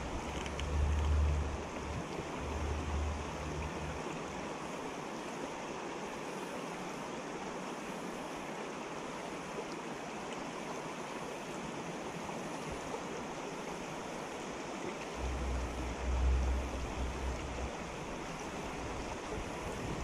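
Shallow creek water running steadily over rocks. Low wind rumble on the microphone comes in gusts near the start and again about three-quarters of the way through.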